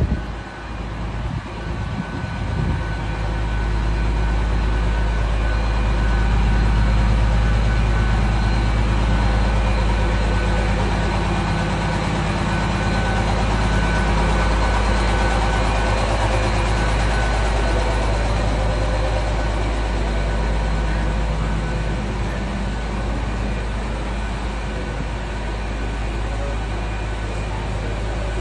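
Class 810 Aurora bi-mode train standing at the platform, its underfloor power equipment running with a steady low hum and a few steady whining tones above it; the hum swells about three seconds in and stays loud.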